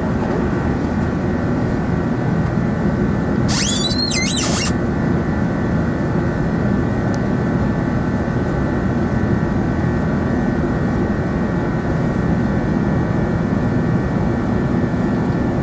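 Rolls-Royce Trent 900 turbofans of an Airbus A380 heard from inside the cabin in flight: a steady jet engine drone with a deep rumble and several steady tones over it. A brief high warbling sound cuts in about four seconds in.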